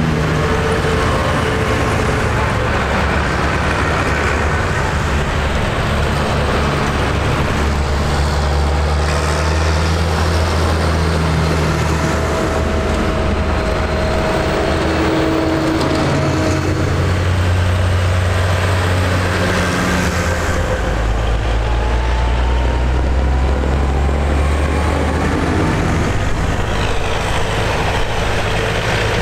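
A line of diesel farm tractors, including a John Deere, a New Holland and a Massey Ferguson, driving past one after another on a tarmac lane. The engine notes shift as each one goes by.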